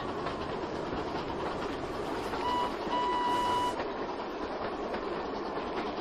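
Toy steam engines running steadily through snow, the train rumbling on throughout. About two and a half seconds in, a steam whistle gives a short toot, then a longer one.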